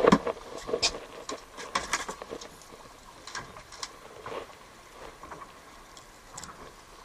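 Scattered clicks and knocks of hands handling fishing gear and fish on a small boat, densest in the first two seconds and thinning to occasional ticks.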